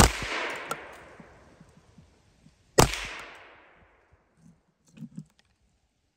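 Two gunshots about three seconds apart, each sharp crack followed by a long fading echo.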